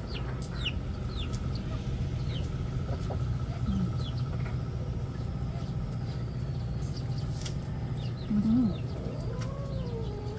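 A steady low hum, with chickens clucking now and then.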